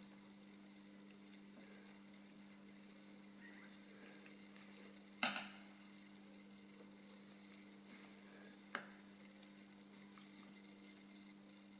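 Near-silent room tone with a steady low hum, broken by two short sharp clicks: one about five seconds in and a quieter one about nine seconds in.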